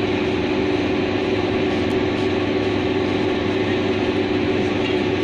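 Train running with a steady rumble and hiss under a constant low hum.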